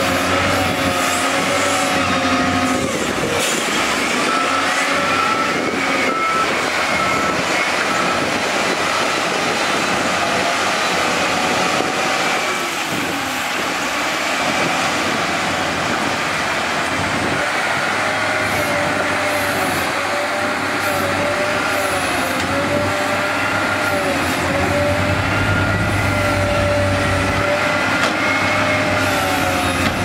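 Diesel engines of wheel loaders running under load, their pitch rising and falling slowly as they rev while pushing and scooping dirt, over a constant rumble of heavy machinery.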